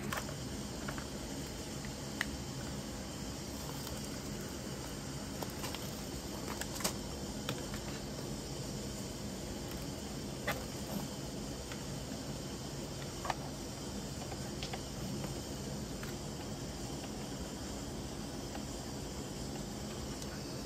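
Steady outdoor ambience with a few light clicks and knocks as power cables are plugged into a power strip and a computer monitor is handled.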